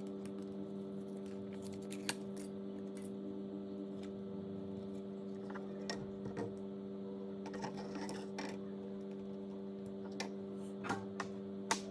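A steady hum with scattered sharp clicks and taps, the loudest click near the end.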